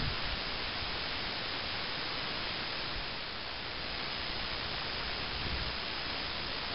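Steady, even hiss of noise, with a brief low thump right at the start.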